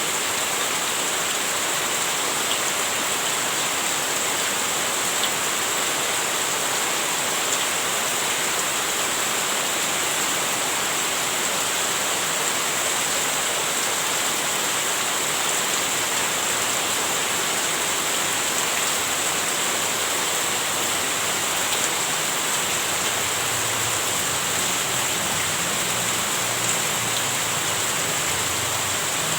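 Heavy rain falling in a steady, dense hiss. A faint low rumble comes in about three quarters of the way through.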